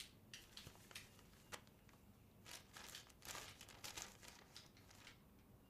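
Faint rustling and crinkling of paper as a letter is drawn from its envelope and unfolded, in short soft strokes.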